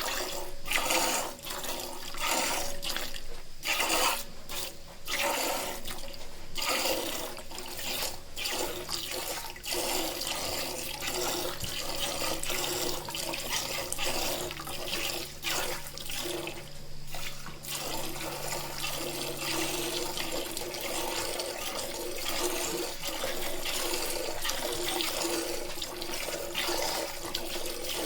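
Milk squirting from a cow's teats into a pail during hand milking. Rhythmic squirts for the first several seconds, then they run together into a steady spray.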